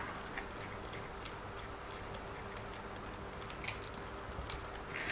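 Faint, irregular small clicks and ticks of small plastic RC car parts and screws being handled and worked on, over a low steady hum.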